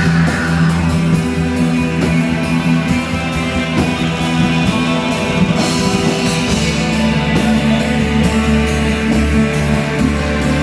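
Live heavy metal band playing: distorted electric guitars and bass chugging a riff over a drum kit with steady cymbal hits. About two-thirds of the way through, the riff drops to a lower note.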